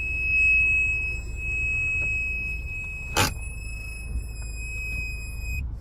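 Continuous high-pitched warning tone of the Mahindra Scorpio N's reverse parking sensors, signalling an obstacle in the closest (red) zone behind the car. A sharp click comes about three seconds in, and the tone cuts off near the end.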